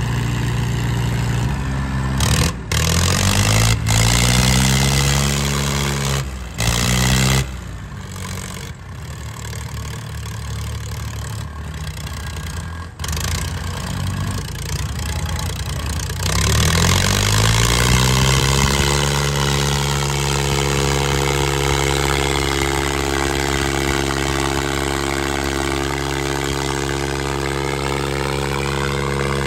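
Diesel tractor engines straining at full throttle in a tug-of-war pull, with an Eicher 557 pulling hard enough to lift its front wheels. In the first half the engine pitch repeatedly sags and climbs, broken by a few abrupt cut-offs. About 16 seconds in it revs up and then holds a steady high pitch under load.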